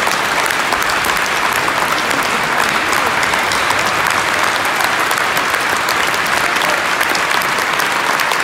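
Concert audience applauding steadily, a dense, even clatter of many hands clapping.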